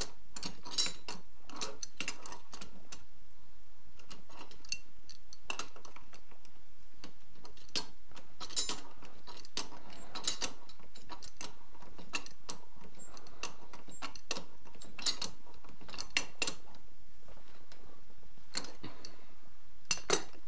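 Scattered sharp metal clicks and clinks of an adjustable wrench working on a Titan LX80 spray gun's diffuser, tightening it as tight as it will go, over a steady low background noise.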